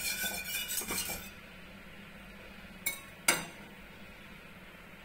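A utensil stirring coconut milk in a stainless steel pot, scraping and clinking against the metal for about the first second. Then two sharp clinks on the pot about three seconds in.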